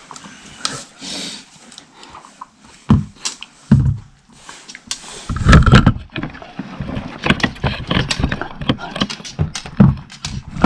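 A small dog nosing and pawing at a treat toy to get the treats out, with irregular knocks, scrapes and small taps, busier in the second half.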